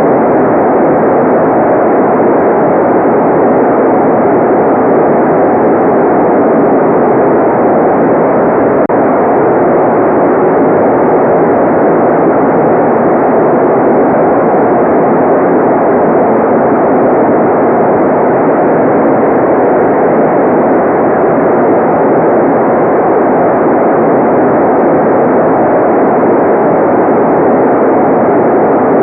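Steady, unchanging white-noise track: an even, muffled hiss with its weight in the middle range and no bright top end.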